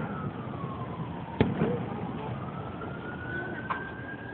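An emergency-vehicle siren wailing with a single tone in a slow rise and fall: it falls over the first second and a half, then climbs again. A sharp firework bang comes about a second and a half in, with a fainter pop later.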